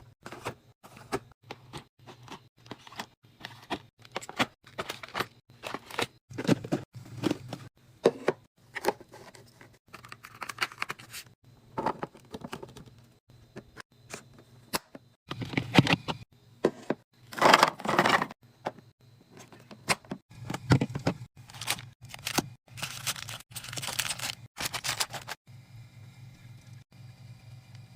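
Packaging being torn and crinkled, among many sharp clicks and knocks of items being handled during a fridge restock. The longest tearing and rustling comes a little past halfway and again near the end. After that it gives way to a faint steady hum.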